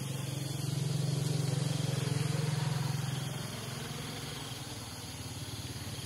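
A steady low engine hum, louder from about half a second to three and a half seconds in, over a faint outdoor hiss.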